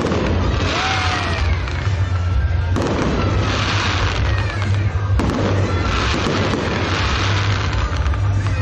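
Fireworks display going off overhead: bursts and crackling, with a fresh burst starting about every two to three seconds (three in all), and some short sliding whistles. Crowd voices run underneath.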